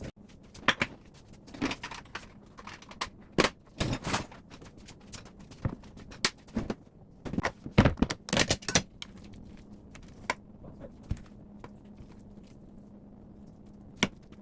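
Irregular knocks, clicks and clatters of objects being handled and set down, busiest in the first two-thirds, over a faint steady hum.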